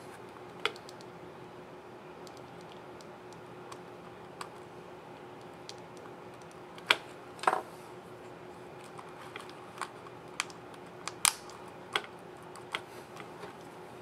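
Plastic laptop keycap and its scissor retainer clip being pressed and snapped onto a Dell Latitude 5310 keyboard: scattered sharp clicks, the loudest a few about seven seconds in and around eleven to twelve seconds in, over a faint steady hum.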